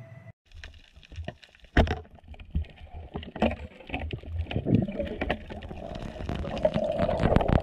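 Underwater sound picked up by a diver's camera: scattered sharp clicks and knocks over a low rumble of moving water, growing busier near the end.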